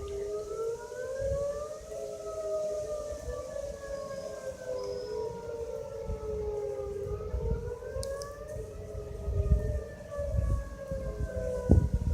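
Outdoor warning sirens wailing for a severe thunderstorm warning: slow rising and falling tones, more than one pitch overlapping out of step, which sound kind of awkward.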